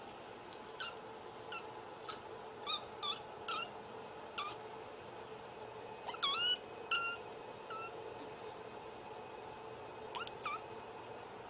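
A white Scottish Fold kitten meowing: a string of short, high-pitched mews, a quick run of about ten in the first four seconds, a few louder ones around six to eight seconds in, and two more near the end.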